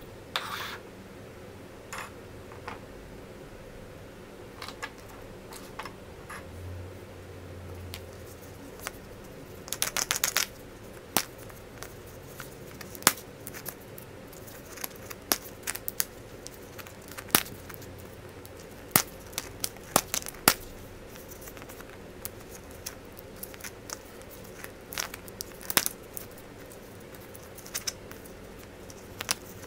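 Hands opening surprise eggs and handling their contents: scattered sharp clicks and taps of small plastic pieces, with a brief burst of wrapper crinkling about ten seconds in. A faint steady hum lies underneath.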